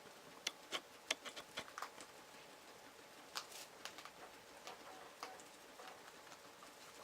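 Guinea pigs moving about their enclosure, making irregular small clicks and taps, the sharpest ones in the first second and a half.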